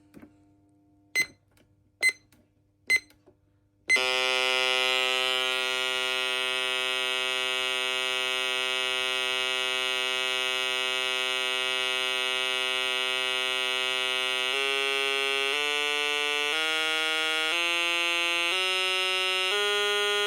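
Menvier TS510 intruder alarm panel: three short beeps, then about four seconds in the alarm starts as a loud, steady electronic tone. Near the end the tone changes to a pitch that steps up and down about once a second.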